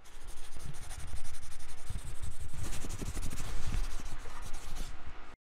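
Outro logo sound effect: a dense, grainy crackling rustle with irregular low thumps underneath, cutting off suddenly about five seconds in.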